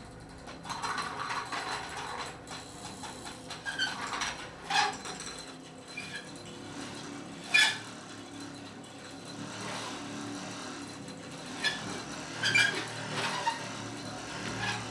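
Prepared hurdy-gurdy played by hand in free improvisation: irregular scrapes, taps and rattles with short ringing tones and no steady drone or tune. Several sharper, louder strikes stand out, the loudest about halfway through.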